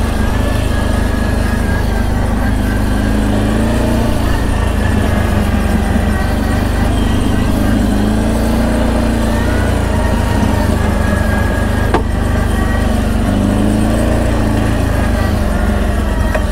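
CFMoto X8 ATV engine running under way, its note rising and easing off three times as the throttle is opened and closed.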